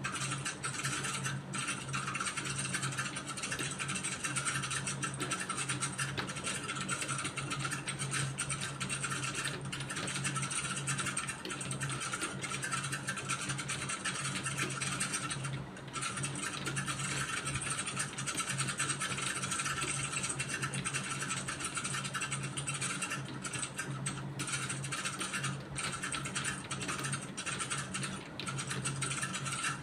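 Computer keyboard being typed on continuously, a dense run of key clicks with a brief pause about 16 seconds in, over a steady low hum.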